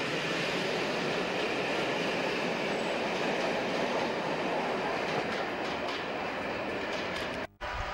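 Passenger train coaches running past a platform at speed: a steady rush of wheels on rail, with a few clicks as the tail of the train goes away. It cuts off abruptly near the end.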